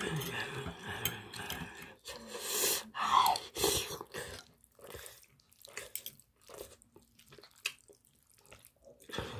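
A metal fork mixing sticky, sauce-coated rice and webfoot octopus on a plate: wet squelching and stirring, with small clicks of the fork against the plate.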